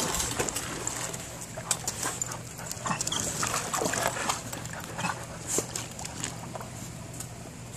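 Dogs whining and panting as one dog swims in a pool, with light splashing from its paddling.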